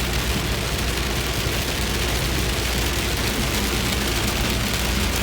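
Heavy rain pouring down as a steady, dense hiss, with a low steady hum underneath.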